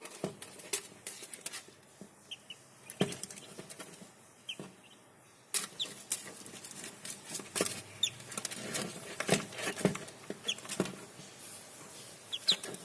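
Newly hatched poultry being handled and moved out of an incubator: irregular clicks, knocks and scuffles of trays, wings and feet, with a few short high peeps from the hatchlings.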